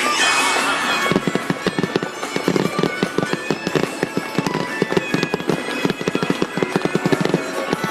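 Fireworks going off in a rapid barrage of many quick pops and crackles, starting about a second in, over music.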